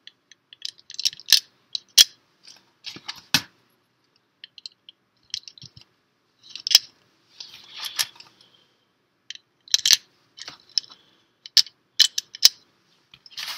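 Small plastic LEGO pieces clicking and rattling against each other as tiles are handled and fitted onto the build: scattered sharp clicks, several of them crisp single snaps, with short bursts of rustling and quiet gaps between.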